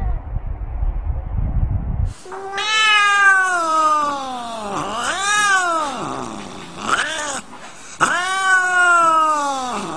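A black cat yowling close up: a long drawn-out caterwaul falling in pitch, a shorter rising-and-falling one, a brief call, then another long falling yowl near the end. The first two seconds hold only a low rumbling noise.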